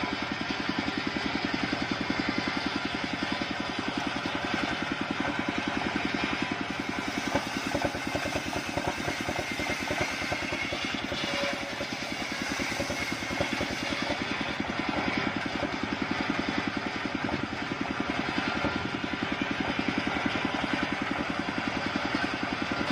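Engine-driven circular saw bench ripping long sengon (albizia) planks: the engine runs steadily with a fast, even beat while the large blade cuts through the wood.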